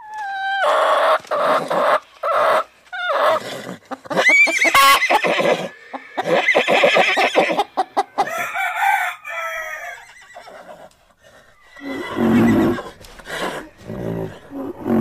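Hens clucking, then a rooster crowing, with calls that rise in pitch. Near the end comes a deeper, lower animal sound.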